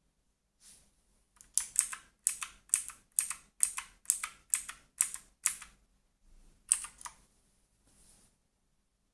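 Redragon K579 Manyu mechanical keyboard keys being pressed: a run of about ten sharp clicks at roughly two a second, then a few softer presses and one more sharp click.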